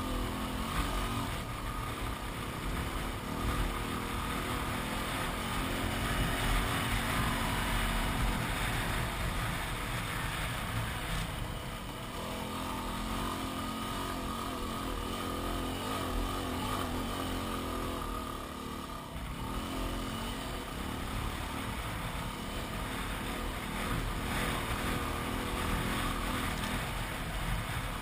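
Yamaha WR250R's single-cylinder engine running steadily under load while riding, over a constant rushing noise; the engine note eases off briefly twice.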